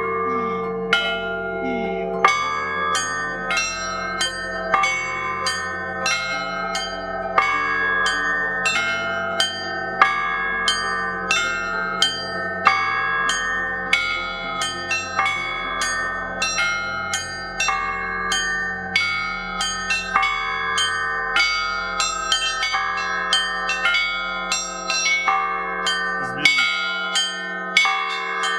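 Russian Orthodox church bells rung together by several ringers: a deep bronze bell sounds in a steady beat under a quick, repeating pattern of smaller, higher bells. The deep bell stops near the end while the small bells keep ringing.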